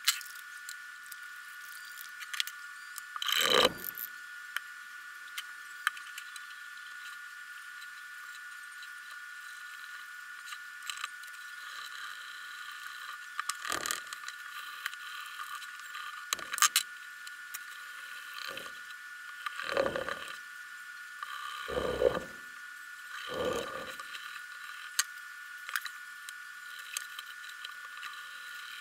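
Hands handling a leather strip, a small plastic bottle and a wooden-handled tool on a wooden board: scattered knocks, clicks and light scrapes, with a handful of louder thumps, most of them in the second half. A steady faint high hum lies underneath.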